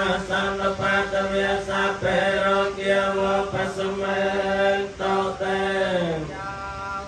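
Buddhist monks chanting Pali verses in unison on a steady, near-monotone pitch. About six seconds in, the voices slide down in pitch as the phrase closes.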